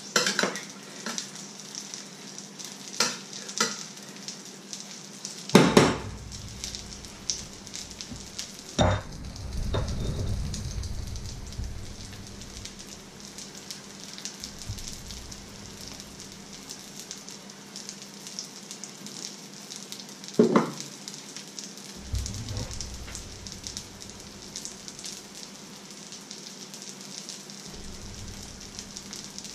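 Breaded fish fingers frying in beaten egg in a pan on a ceramic hob, sizzling steadily. A few sharp clatters of cookware cut in, the loudest about six, nine and twenty seconds in.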